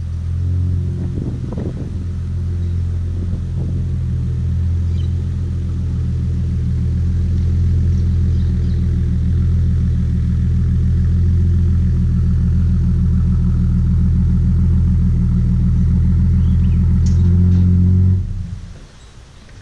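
Car engine running steadily with a low, even hum, then cutting off abruptly near the end.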